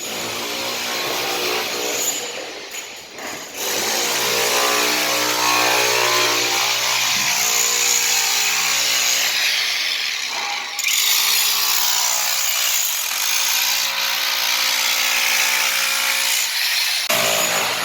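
A power tool running steadily with a motor whine, stopping briefly about eleven seconds in and then starting again.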